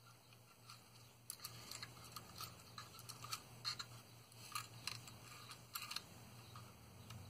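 Faint, irregular clicks and taps of small plastic model kit parts being handled and test-fitted against the hull, over a low steady hum.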